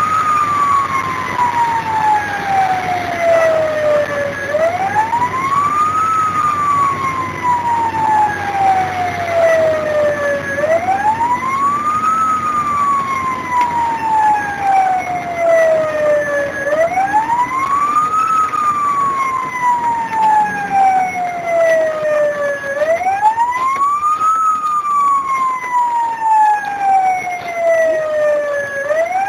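Fire engine siren wailing, heard from inside the cab: each cycle rises quickly, then falls slowly, and repeats about every six seconds over the truck's low engine and road rumble.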